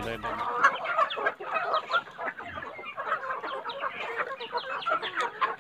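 A flock of young free-range chickens feeding together: a dense chorus of many overlapping clucks and short chirps.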